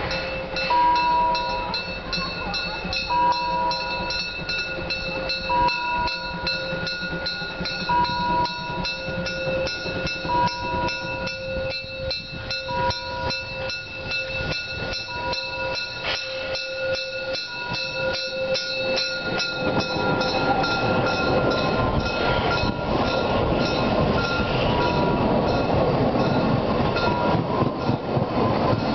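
Level-crossing warning signals: a bell ringing in rapid, even strokes, with a short beep repeating about every second and a bit. The beep stops about 19 s in, and then a narrow-gauge steam train passes close by: the locomotive's exhaust and the coaches' wheels rolling over the crossing, loud and rushing.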